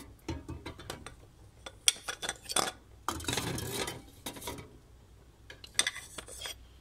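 A metal spoon clinking and scraping inside a tin can as hard-boiled eggs are lifted out of the water and set on a ceramic plate: scattered sharp clinks and knocks, with a longer scraping stretch about three seconds in.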